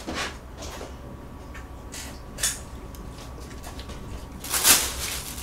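Things being handled and moved about while tidying up: scattered light clicks and knocks, with a louder brief scraping noise near the end.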